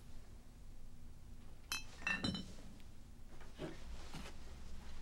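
Glassware clinking, as a drinking glass is handled and set down on a bar: one clink about a second and a half in, then a quick cluster of clinks about half a second later, each with a brief high ring, followed by a couple of fainter knocks.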